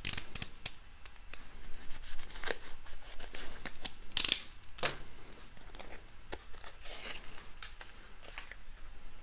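Foil-laminate MRE retort pouch being torn open and crinkled in the hands, in short irregular crackling strokes, loudest about four seconds in.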